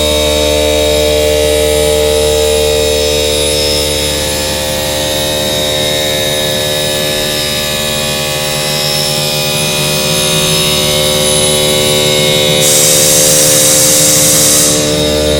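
Vertical machining centre running a grinding wheel in its spindle to face-grind a workpiece: a steady multi-tone whine and hum from the spindle and wheel. A loud hiss comes in about 13 seconds in and lasts about two seconds.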